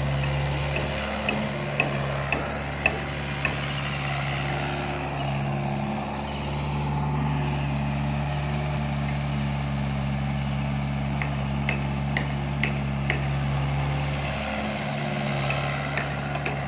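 Doosan DX55 mini excavator's four-cylinder Yanmar 4TNV diesel running steadily under working load as it digs and moves soil, with occasional sharp knocks scattered over the engine sound.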